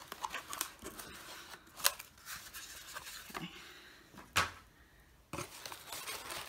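A cardboard shipping box being unpacked by hand: rustling and scraping of cardboard, with two sharp knocks as the flaps and a cardboard insert are moved. Near the end, crinkled kraft packing paper rustles as a hand digs in among it.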